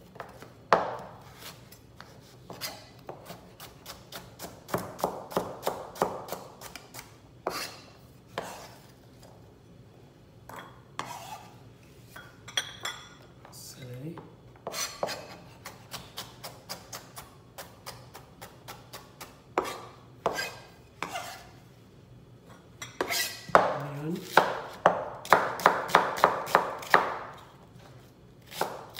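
Chef's knife chopping carrot, celery and onion on a plastic cutting board: uneven single knife strikes, with two runs of quick chops, one about five seconds in and a longer one near the end.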